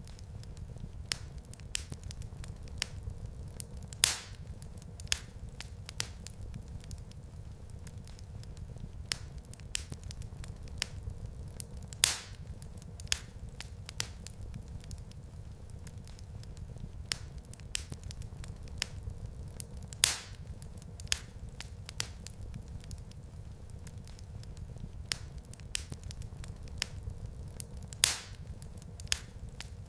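Wood fire crackling in a fireplace: a steady low rumble of flames with frequent small crackles and four louder pops about eight seconds apart.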